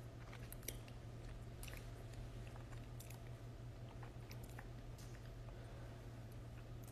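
A man's faint mouth noises, small scattered clicks and smacks, close to a phone's microphone, over a steady low hum.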